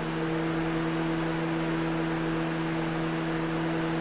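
A 2009 Honda Civic's electric radiator cooling fan runs steadily, a constant hum over a rush of air, after being switched on through a scan tool's radiator fan test.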